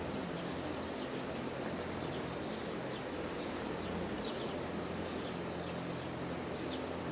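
Outdoor ambience: scattered short bird chirps over a steady low hum.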